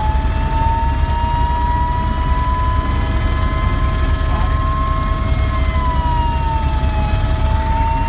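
Eurocopter AS350 B2 A-Star helicopter in flight, heard from inside the cockpit: a steady, loud drone of rotor and single turboshaft engine under several high whines. One whine rises slowly in pitch, dips a little past the middle, then climbs again.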